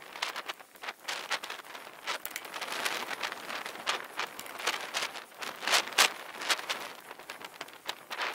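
Bicycle ridden over a bumpy grass track, heard through a bike-mounted camera: irregular rattles and knocks from the jolting, over a steady rushing noise of tyres and wind.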